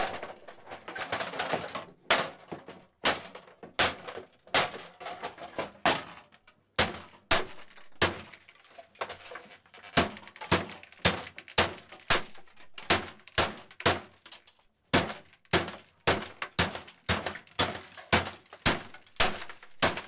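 A hammer smashing a 1982 Brother Cassette 3912C electric typewriter: a long series of hard strikes on its plastic housing and metal type mechanism, with plastic cracking and breaking. The blows come irregularly at first, then settle into a steady run of about two a second in the second half.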